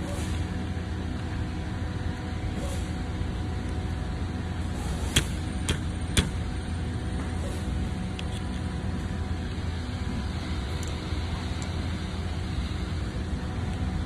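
A steady low hum runs throughout. Over it come three sharp clicks a little before the middle, from the plastic thumb-shifter and brake-lever unit being handled on the handlebar.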